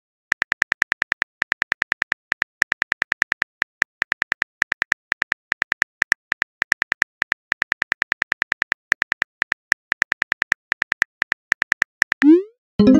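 Smartphone keyboard typing clicks, quick and even at about seven a second in runs with short pauses, as a message is typed out. Near the end a short rising swoosh, the message-send sound.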